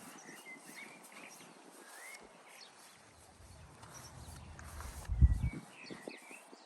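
Small birds singing and chirping, with a brief low rumble about five seconds in.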